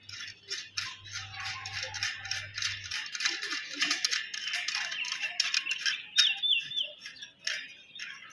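A hand tool rasping back and forth on the edge of a galvanized steel slotted angle bracket, several quick strokes a second, with a bird chirping briefly about six seconds in.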